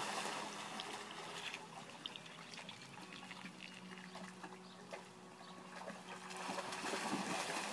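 Dogs splashing and sloshing as they wade through shallow water standing on a pool cover, louder at the start and again near the end, quieter in the middle.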